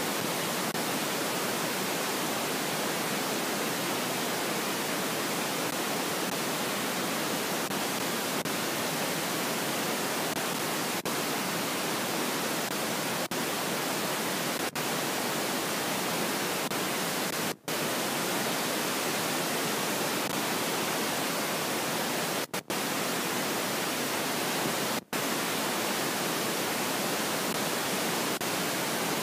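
Steady static hiss like white noise, with no voices or other sounds in it, cutting out for a split second a few times in the second half.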